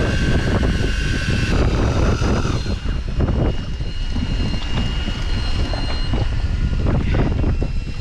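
Wind buffeting the microphone, with the thin steady whine of an electric fishing reel winding line up from deep water; one of its tones stops about two and a half seconds in.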